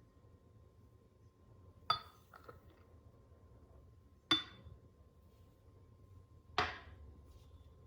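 Three sharp clinks of glassware or cups knocking against something hard, about two seconds apart, each with a short ring; the last one trails off with a brief scrape.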